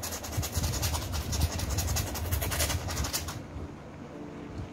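Palette knife scraping thick white acrylic paint across a stretched canvas in quick repeated strokes, stopping about three and a half seconds in; a steady low rumble runs underneath.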